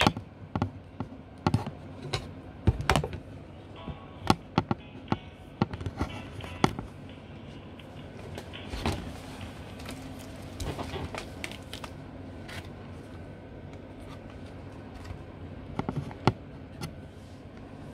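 Scattered taps and knocks of a hand-held phone being handled, over a faint steady background.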